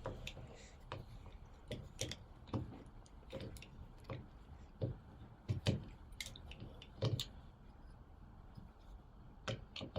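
Irregular clicks and creaks of a Leatherman Rebar multitool's screwdriver bit turning a stuck screw out of wood, a few scattered strokes, the loudest about five and a half and seven seconds in.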